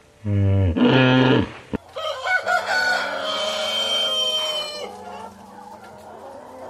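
Rooster crowing: a loud opening part in the first second and a half, then a long drawn-out note of about three seconds.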